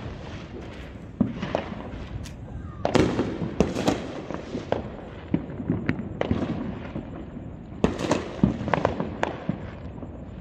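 Distant fireworks going off: a string of sharp bangs and pops with short echoing tails, coming in quick clusters about three seconds in and again about eight seconds in.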